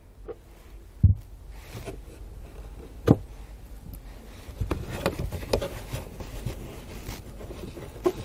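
A screwdriver prying plastic push-pin trim retainers out of a car's interior trim panel: two sharp plastic clicks about two seconds apart as the pins pop free. After them come small ticks and light rustling as the trim and felt lining are handled.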